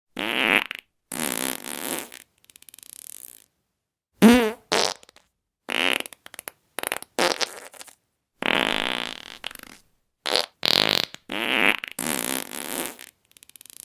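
A string of about a dozen separate farts, each short, with brief silences between them. Some are a wet sputter, one around four seconds in wavers up and down in pitch, and one near three seconds in is a fainter, rapid flutter.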